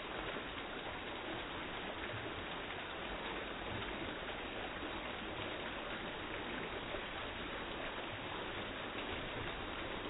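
Water falling steadily over a small stacked-stone garden waterfall, splashing down the rocks in a continuous even rush.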